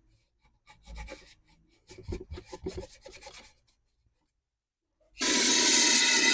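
Scrubbing strokes on a leaf blower's fuel tank as it is cleaned, in two short bouts of rubbing, then about five seconds in a loud steady rushing hiss starts suddenly and keeps going.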